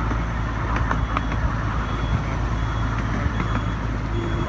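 Miniature train running along its track with a steady rumble. Faint short electronic beeps of a level-crossing warning signal repeat every second or so.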